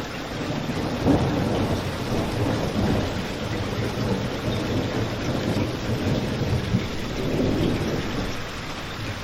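Steady rain with a low rumble that swells about a second in and again later, along with a couple of brief sharp pops.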